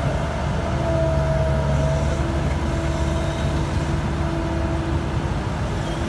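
Diesel engines of a HAMM 3410 road roller and a Kobelco crawler excavator running steadily at close range. Over the low engine drone a higher whine fades in and out several times.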